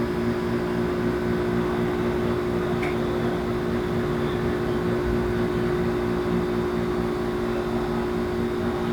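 Air conditioner running with a steady hum from its compressor and blower fan.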